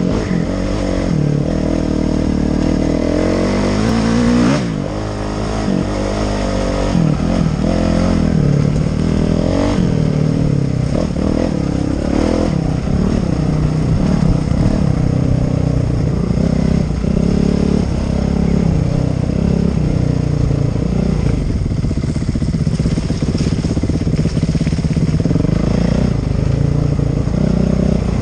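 Dirt bike engine being ridden hard, revving up and down over and over, its pitch climbing and dropping with each throttle change and gear shift, with a brief drop in level about four seconds in.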